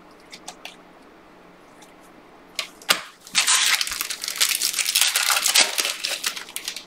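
Foil wrapper of a basketball trading card pack being torn open and crinkled by hand: a dense crackle lasting about three seconds in the second half, just after two sharp clicks.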